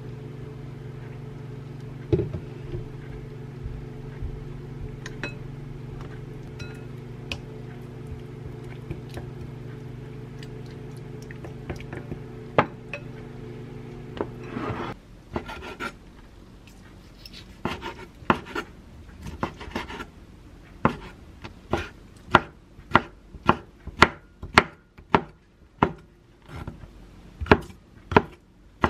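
Occasional clicks of a spoon against a glass mixing bowl as a sauce is stirred, over a steady low hum that cuts off about halfway through. Then a kitchen knife slicing squid on a wooden cutting board, knocking on the board at about two strokes a second.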